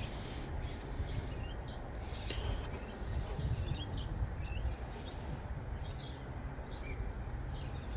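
Small birds chirping in short, scattered calls over a steady low rumble from the Mitsubishi Triton's 2.8 turbo-diesel idling at operating temperature.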